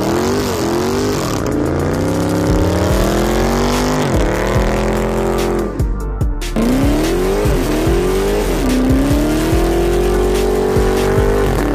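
Dodge Charger's Hemi V8 revving hard during a burnout, its pitch climbing and falling back several times as the throttle is worked, with the rear tires spinning and squealing on the pavement. A brief break comes about six seconds in.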